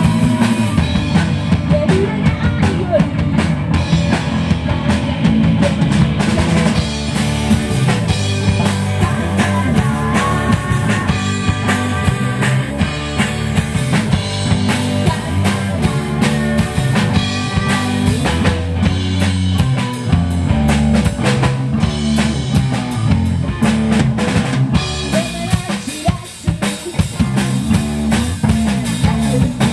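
Live rock band playing loud and steady: electric guitar, electric bass and a drum kit with bass drum, snare and rimshots. The level dips briefly near the end before the band comes back in full.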